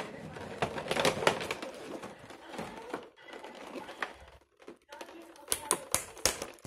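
Clear plastic blister packaging being handled and pried apart: crinkling and sharp plastic clicks, with a quick run of louder clicks near the end.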